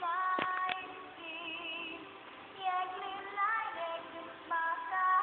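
Music with a high singing voice holding notes, some of them wavering; two sharp clicks about half a second in.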